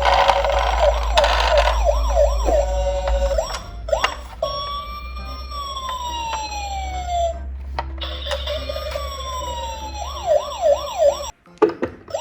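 Several police and ambulance sirens sounding at once. Quick rising-and-falling whoops repeat in the first few seconds and again about ten seconds in, with long, slowly falling wails between them.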